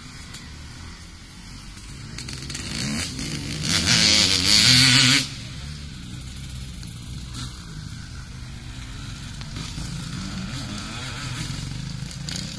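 Motocross dirt bike engines running on a dirt track, their pitch rising and falling. One bike grows louder up to a peak about four to five seconds in, then the sound drops off suddenly, and the other bikes keep running more quietly.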